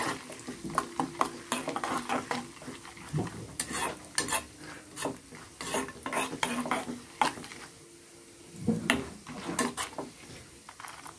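A spoon stirring and scraping in a small metal pan, clinking against it at an irregular pace, while sliced almonds and cloves fry in ghee with a light sizzle. The stirring pauses briefly about eight seconds in.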